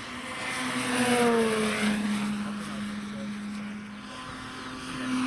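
Electric-powered Hawker Hurricane RC model's motor and 20-inch propeller droning as it flies by. It grows loudest about a second in, where the pitch drops as it passes, then drones on more quietly.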